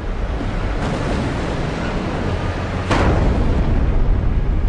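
Loud, deep rumbling of a World Trade Center tower collapsing, heard on news footage. It swells suddenly about three seconds in and stays at that higher level.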